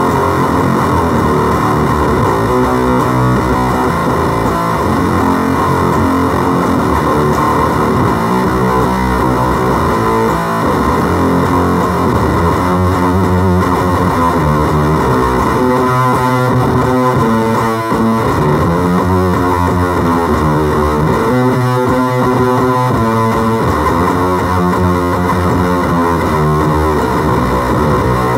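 Electric guitar played through a FOWL Octagram Fuzz pedal, heavily distorted, with notes changing steadily and no pauses.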